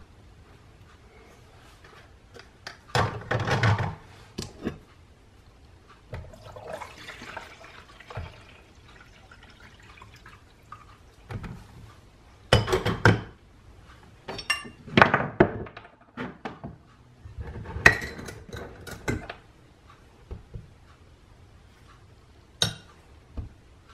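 Kitchen sounds of making coffee: water or coffee pouring and dishes clinking, in a string of short separate bursts with sharp clicks between them.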